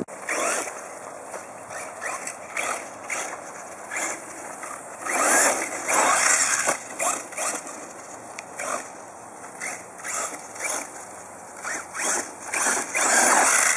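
Electric RC buggy driving on loose dirt, its tyres scrabbling and throwing grit in repeated short bursts of throttle, loudest about five to seven seconds in and again near the end.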